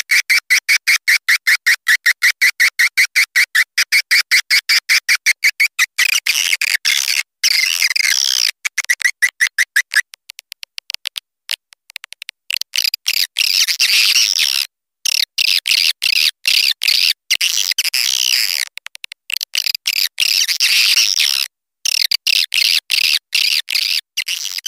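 Swiftlet calls played as a lure sound: a rapid run of chirps, about five a second, for the first six seconds or so, then dense, higher twittering in bursts with brief gaps.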